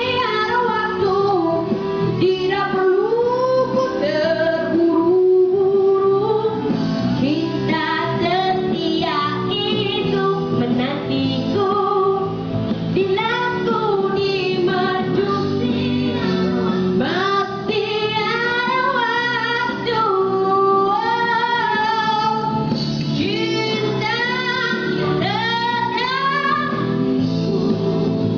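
A boy's high voice singing a pop song into a handheld microphone over instrumental accompaniment, the melody gliding up and down through phrases.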